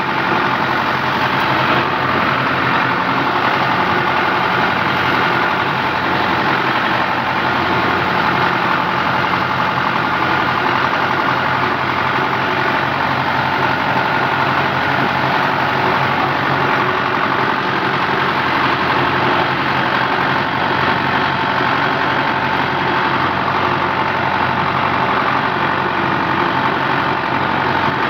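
Fiat 640 tractor's diesel engine running steadily at low revs as the tractor drives slowly, heard from the driver's seat.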